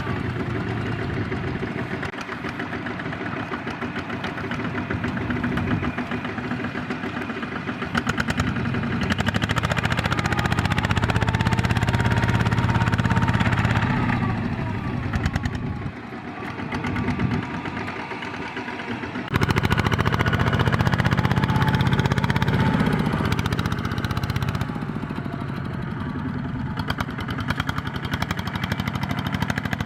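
Single-cylinder diesel engine of a small Kubota two-wheel farm tractor running steadily with a rapid knocking beat. It gets abruptly louder about two-thirds of the way in.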